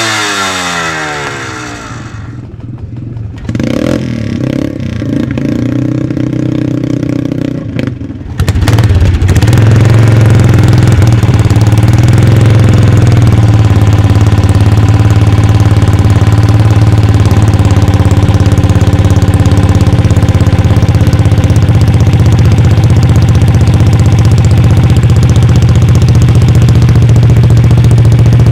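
A classic two-stroke dirt bike's single-cylinder engine settles after a rev and runs more quietly. About eight seconds in, the sound changes suddenly to a BSA scrambler's single-cylinder engine running loud and steady, with a deep even hum.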